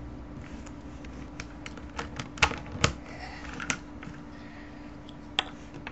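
Plastic Rubik's Cube pieces clicking and snapping as corner pieces are fitted back into the cube by hand: irregular sharp clicks, the loudest few in the middle and one more near the end, over a steady low hum.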